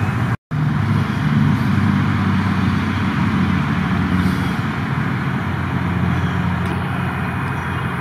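Road traffic with a motor vehicle's engine running steadily, a low hum over a noisy rumble. There is a short gap about half a second in.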